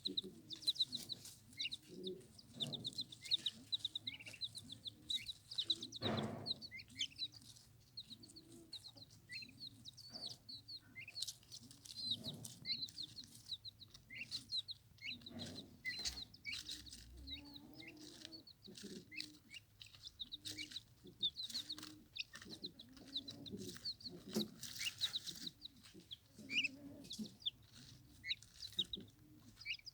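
Turkey poults peeping continuously in quick, short high calls while they feed, with soft low clucking notes and scattered sharp clicks among them.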